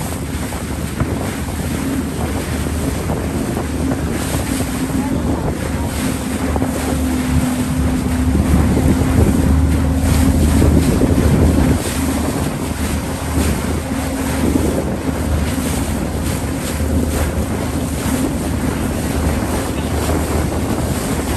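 A motorboat engine drones steadily, growing louder for a few seconds in the middle before easing off, with wind rumbling on the microphone.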